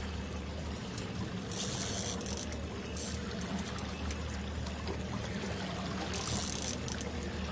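Boat engine running steadily at trolling speed under the splash and wash of water along the hull, with two brief hissing bursts about a second and a half in and near the end.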